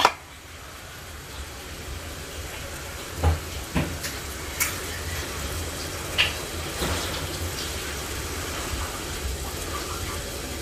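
Steady hiss of food cooking on a stove, broken by a handful of short knocks and clinks from kitchen utensils around the middle.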